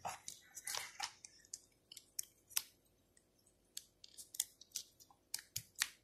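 Faint, irregular small clicks and taps, a dozen or more spread across the seconds, from a USB cable and plug being handled and plugged in to connect an Arduino Nano to a computer.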